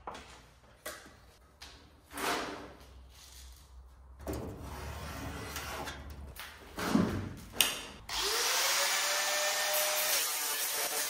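Knocks and clatter of parts being handled, then an electric power tool spins up about eight seconds in, its motor pitch rising and then holding steady as it runs.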